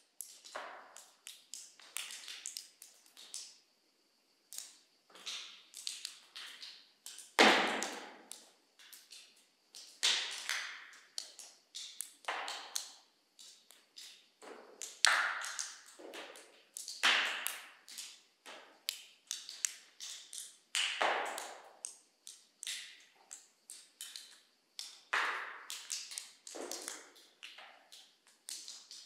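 Water drops falling from a cave ceiling, landing irregularly about one or two a second, each plink trailing off in the echo of a large cave chamber. One drop about a third of the way in is clearly the loudest.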